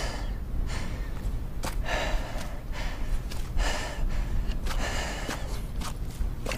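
A man breathing hard, about one loud rough breath a second, over a low steady rumble.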